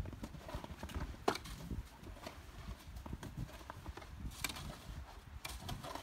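Roof snow plow shovel scraping and knocking across the snow-covered roof shingles in irregular strokes, with a sharp clack about a second in and another near the middle, over a low rumble.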